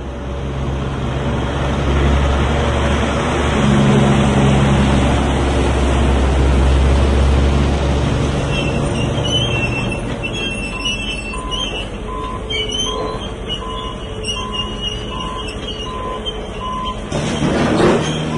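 Heavy log-handling machinery running in a sawmill yard with a deep engine rumble. About halfway through a backup alarm starts beeping steadily, about three beeps every two seconds, and a louder rush of machine noise swells near the end.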